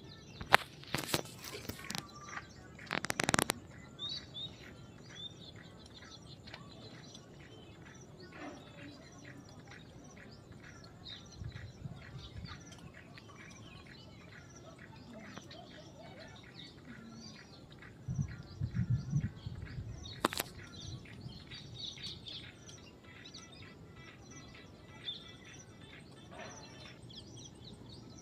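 Many small birds chirping and twittering in a dense, continuous chorus. A few loud noisy bursts come in the first few seconds and a sharp click about twenty seconds in, with low rumbling now and then.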